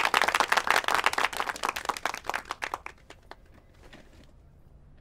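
A small group of people applauding, the clapping dying away about three seconds in, followed by a few faint clicks.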